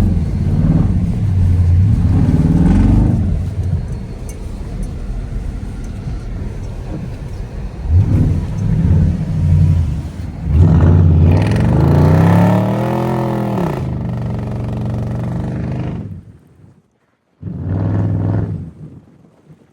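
Car engine revving hard several times, its pitch climbing and falling in sweeps as the car is slid in the snow. It briefly cuts out near the end, then revs once more.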